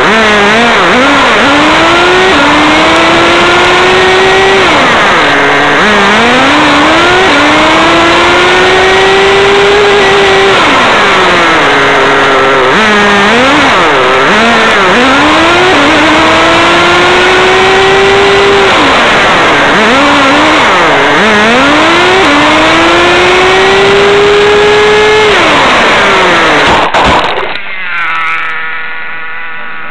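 Radio-controlled car's motor, heard close up through the car's onboard mini camera, revving up in rising sweeps that level off and then drop away, again and again every few seconds. Near the end it cuts off abruptly and a quieter, steady buzzing hum follows.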